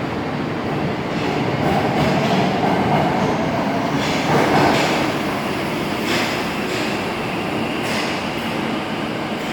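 Tokyo Metro Marunouchi Line subway train moving along the underground station platform, its wheels clacking over rail joints several times, with a faint whine. The sound swells to its loudest about halfway through.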